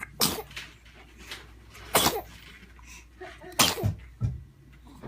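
A baby sneezing three times in a row, each a short sharp burst, about a second and a half to two seconds apart.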